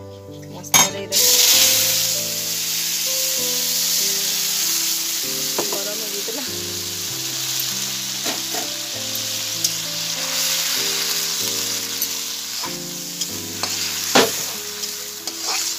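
Yellow masala paste dropped into hot oil in a steel kadai: a loud sizzle starts about a second in and carries on steadily as it fries, with a few clicks of a spoon against the pan.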